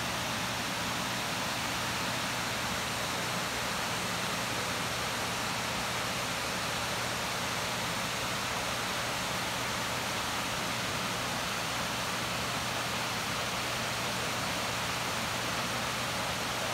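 Small waterfall cascading over shale ledges into a pool, a steady rushing of falling water with no change in level.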